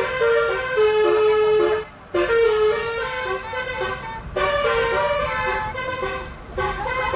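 Bus telolet horn: a set of air horns tooting a stepped melody of short and held notes, pausing briefly about two seconds in and again past four seconds.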